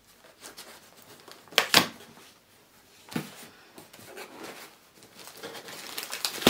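Package being handled and rustled, with a sharp knock about a second and a half in and a softer one about three seconds in; the rustling builds again near the end.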